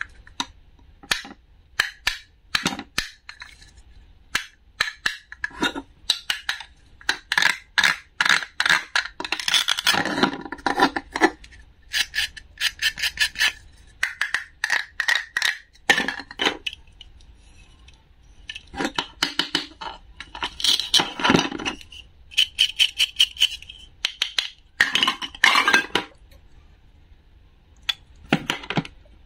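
Plastic toy fruit and vegetables handled on a plastic cutting board: many quick clicks and taps with stretches of scratchy rubbing, as the pieces of a bumpy toy soursop are turned, pressed and rubbed together.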